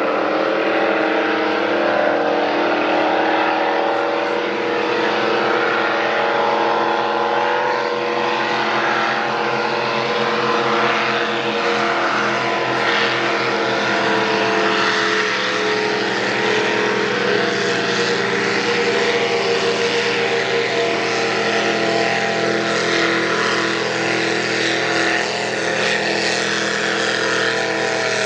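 High-horsepower racing boat engines running at speed across the water, a steady drone of several overlapping tones that dips in pitch near the end as the boats pass.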